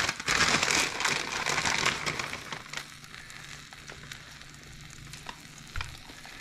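An egg-and-protein-powder pancake frying in a pan, sizzling with fine crackles. The sizzle is louder for about the first two seconds, then settles to a fainter crackle with occasional small pops.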